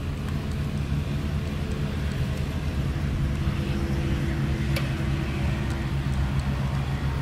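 A steady low engine hum runs throughout, with one sharp click nearly five seconds in.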